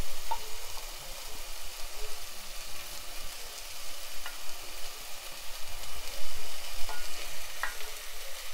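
Onion and mixed vegetables sautéing in oil in a pot, a steady sizzle with a few faint ticks of popping.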